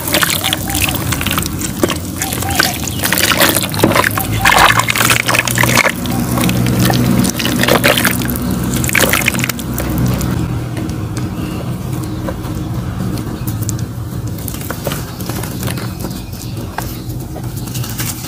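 Thick clay mud slurry pouring and splattering onto chunks of dry clay in a plastic basin, busy and wet for about the first ten seconds, then settling and dripping more quietly. Near the end, soaked clay crumbles and crunches in the hands.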